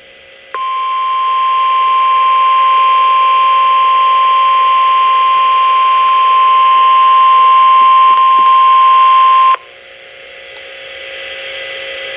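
Weather radio's 1050 Hz warning alarm tone: one steady, loud, high tone held for about nine seconds, cutting off sharply, over radio hiss that continues after it. The tone signals the urgent warning statement that follows.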